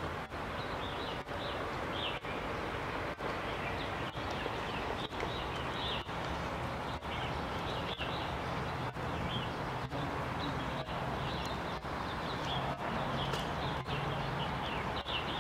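Outdoor wetland ambience: a steady background noise with many short, high bird chirps scattered through it. The sound drops out briefly about once a second.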